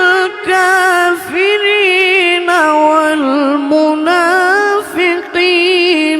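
Solo Quran recitation (tilawah) in a high voice: long melodic held notes with wavering, ornamented glides, broken by a few brief pauses for breath.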